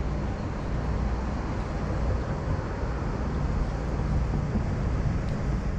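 Steady low outdoor rumble with a faint low hum underneath, unchanging throughout.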